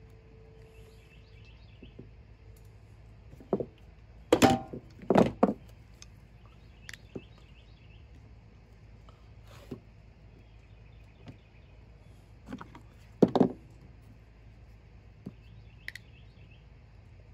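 Small spring clamps being clipped onto a steel brake band and set down, knocking and clicking against the metal. A cluster of louder clunks comes about four to five seconds in and another about thirteen seconds in, with lighter ticks between.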